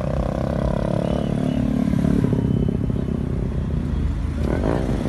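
Car engines running with a steady low rumble; one engine note slides down over the first couple of seconds, and another note briefly rises and falls near the end.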